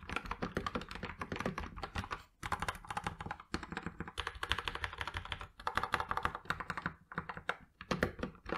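Typing on a Genesis Thor 404 TKL mechanical keyboard with tactile Kailh Box Brown V2 switches: a fast run of keystroke clacks, broken by a few short pauses.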